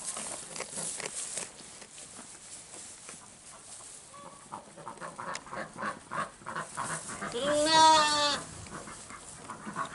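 A Cameroon sheep bleats once near the end, a wavering call of about a second. Before it come the crunching and rustling of sheep feeding on hay.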